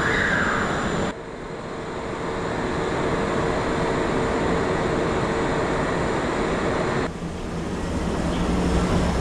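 Steady running hum and noise of the Kintetsu Hinotori limited express standing at an underground station platform with its doors open, with a steady tone through it. The sound drops abruptly twice, about a second in and again about seven seconds in.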